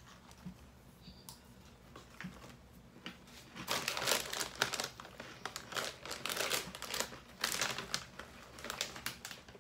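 Crinkling of a plastic snack bag and crunching of corn snack mix being chewed. The first few seconds are quiet, then dense, irregular crackling starts about a third of the way in and keeps going.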